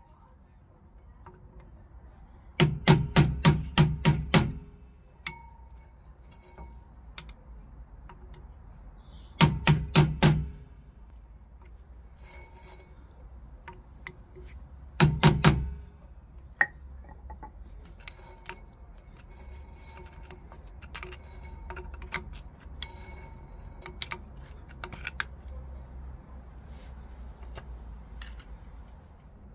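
Hammer tapping a screwdriver wedged under the metal dust cap of a rear brake drum hub to drive the cap off. Three quick bursts of sharp strikes, about eight, then four, then three or four, with light clicks and scrapes of the screwdriver between them.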